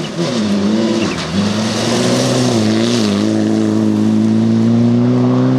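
Mitsubishi Lancer Evolution rally car's turbocharged four-cylinder engine running hard. The revs dip and pick up a few times in the first seconds, then climb slowly and steadily.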